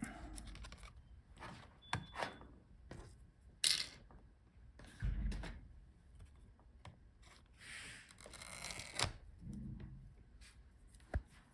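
Faint, scattered small clicks, taps and rustles of hands unplugging cable connectors from a laptop motherboard, with a brief scrape about four seconds in and a longer soft rustle near nine seconds.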